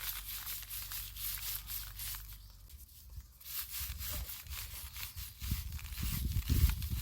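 Dried perilla plants being threshed: brittle stalks and seed heads rustling and crackling in a dense run of dry ticks, with low dull thumps joining in the second half.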